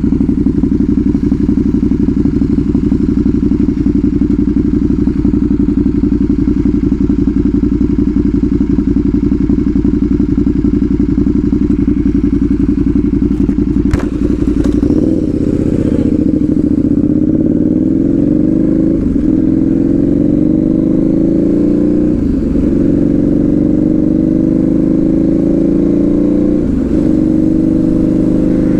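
Motorcycle with a loud exhaust running steadily at low revs, then about halfway pulling away: the pitch rises and drops back three or four times as it shifts up through the gears. A sharp click sounds just before it moves off.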